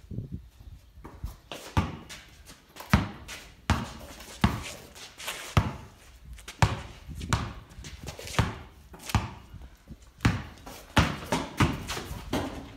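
A basketball being dribbled, thudding on the floor of a corrugated-iron shed in irregular bounces about one a second, coming quicker near the end.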